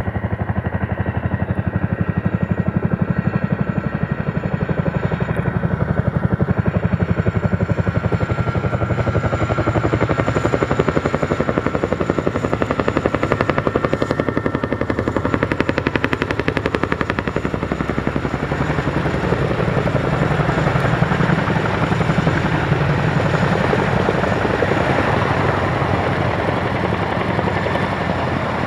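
Boeing CH-47 Chinook tandem-rotor helicopter close by, its two rotors beating in a fast, even rhythm with a steady whine from its twin turboshaft engines, as it hovers low and descends to land.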